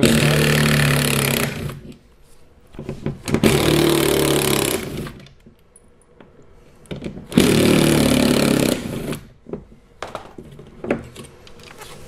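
Cordless power driver with a Torx T20 bit running in three bursts of about a second and a half each, backing out the window-motor mounting screws, with small clicks of handling between them.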